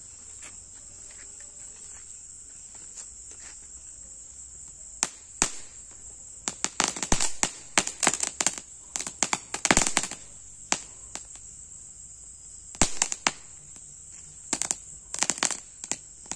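Small Chinese-style crackling ground cracker going off in irregular strings of sharp crackling pops, starting about five seconds in and coming in bursts with short gaps. Crickets chirp steadily in the background.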